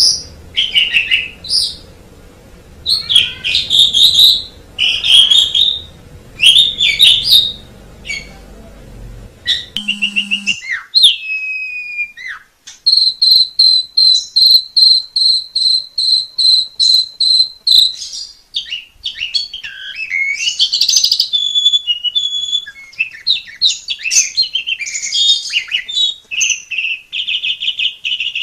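Asian pied starling (jalak suren) singing: a loud, varied string of chirps, whistles and harsh notes, with a fast run of rapidly repeated notes for several seconds in the middle. A low background hum under the song drops out about ten seconds in.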